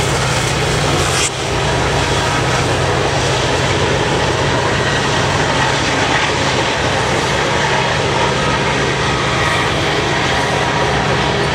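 Loud, steady roar of a CN freight train rolling past: wheels on rail over a low diesel rumble, with a brief dip about a second in.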